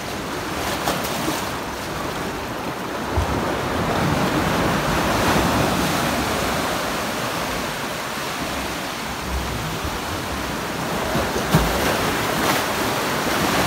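Sea waves washing against rocks, a steady wash of surf that swells about a third of the way in, with wind on the microphone.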